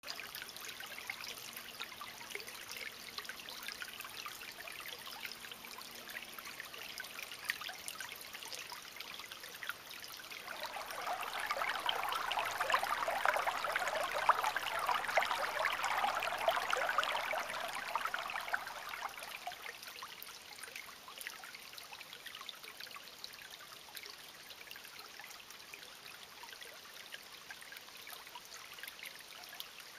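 Shallow creek water trickling over rocks and leaves. About a third of the way in it swells to a louder rush for several seconds, then eases back to a soft trickle.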